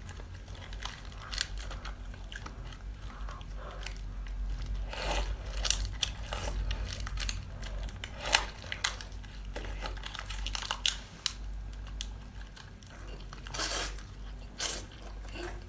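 A person chewing a large mouthful of seafood close to the microphone: irregular wet smacking and crunching of mouth sounds.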